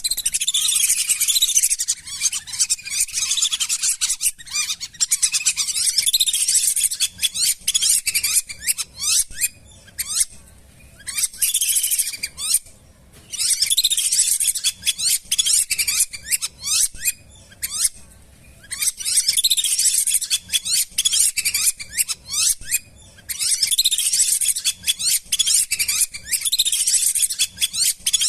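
Flock of lesser whistling ducks giving many rapid, high whistled calls. The calls come in bouts of several seconds, broken by short pauses.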